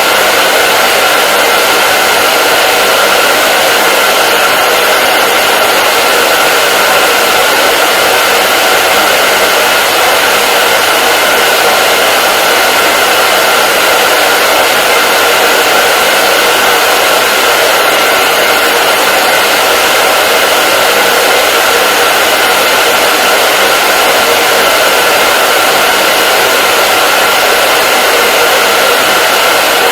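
Hair dryer running continuously with a steady, unchanging rush of air and a faint steady whine.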